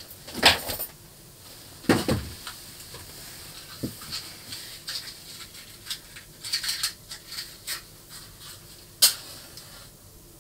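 Irregular clinks, knocks and light scrapes of small objects being handled at a desk. The loudest is a sharp click about nine seconds in, as a metal petrol lighter is struck.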